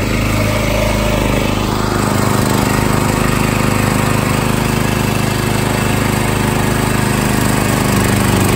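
Predator 212 single-cylinder four-stroke engine on a Beaver Dam Mud Runner longtail mud motor running steadily under load, driving the boat, with water churning behind the stern. It gets a little louder about two seconds in.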